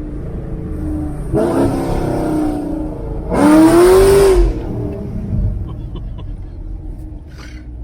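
Exhaust of a 2016 Camaro SS's 6.2-litre LT1 V8 with long tube headers and an X-pipe, accelerating in two short bursts, the second the loudest with its pitch rising then falling, before settling to a quieter cruise.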